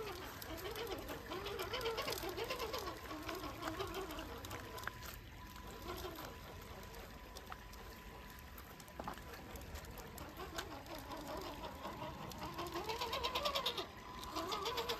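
Electric drive motor and geartrain of an RC 6x6 crawler truck whining, swelling up and falling back in pitch with each blip of the throttle. It is busiest in the first few seconds and again near the end, with a quieter stretch in between.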